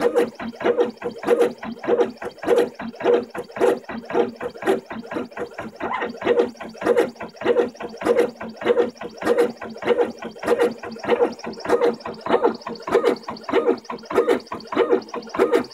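Aluminatus 3D printer's stepper motors whirring in short, pitched bursts, about two to three a second, as the carriage jabs a fine-tip Sharpie down and up onto the paper dot after dot.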